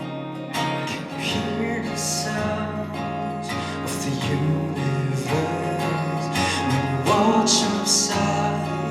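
Song played on acoustic guitar, strummed steadily, with a singing voice coming in over it.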